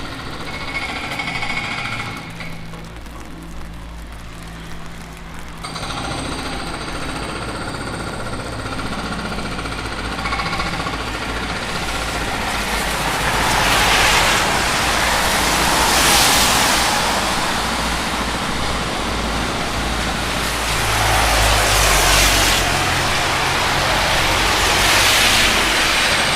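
Road traffic: motor vehicles going by one after another over a low engine hum, each pass a hiss that swells and fades, the loudest in the second half.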